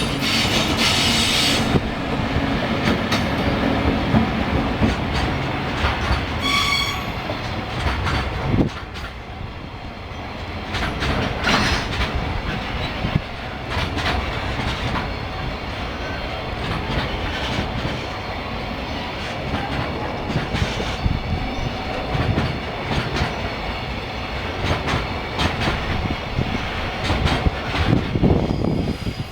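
Freight train rolling past at a level crossing, its wagon wheels clattering steadily over the rail joints, with a short high-pitched squeal about six and a half seconds in.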